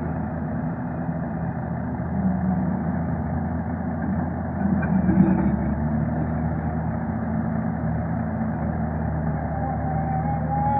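Hyundai 220 excavator's diesel engine running steadily, with a brief swell in level about five seconds in.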